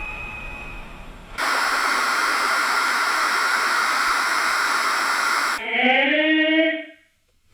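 A steady, loud hiss cuts in abruptly about a second in and stops just as suddenly about four seconds later. A brief voice-like sound with gliding pitch follows near the end.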